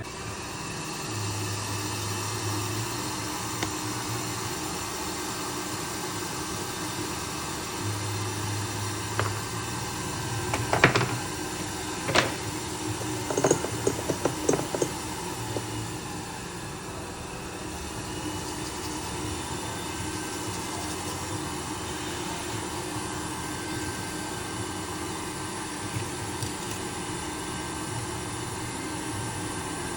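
Steady mechanical hum with several fixed tones, as from a small motor or fan. A low buzz switches on and off at times, and a cluster of sharp clicks and taps comes about a third of the way in.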